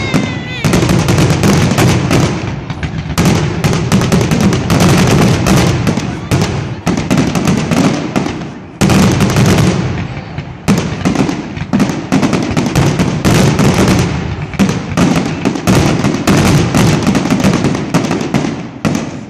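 Aerial firework shells bursting in a rapid, dense barrage: many loud bangs and crackles a second, overlapping almost without pause. The barrage dies away near the end.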